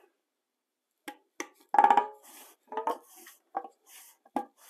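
Lid of a metal epoxy can being worked open with a small tool: a string of sharp metallic clicks and clinks, the loudest about two seconds in with a brief ring.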